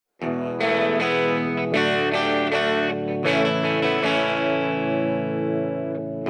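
Background music: plucked guitar with effects, chords struck every second or so and left ringing, after a brief gap at the start.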